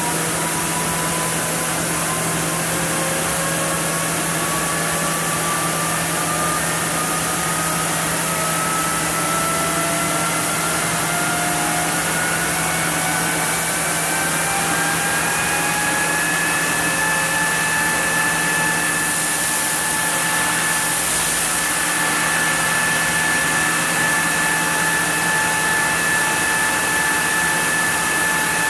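Sawmill machinery running for the milling of a zelkova block: a steady hum under a whine that climbs slowly for about sixteen seconds and then holds at one pitch, with a brief hiss about twenty seconds in.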